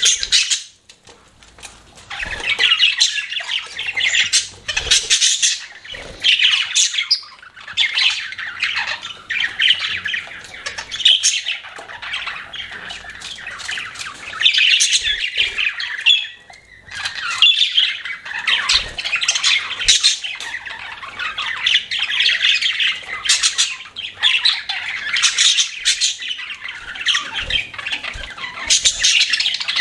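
Budgerigars chattering and chirping continuously, with frequent short harsh squawks among the warbling.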